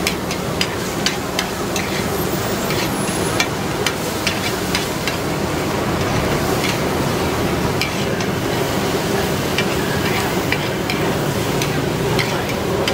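Oyster omelette frying on a large flat pan, a steady sizzle with a metal spatula scraping and clicking against the pan again and again.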